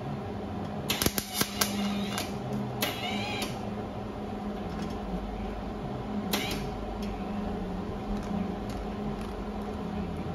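MIG welder arc crackling in short bursts of under a second, about a second in and again near three seconds, over a steady shop hum; a single sharp click near six seconds.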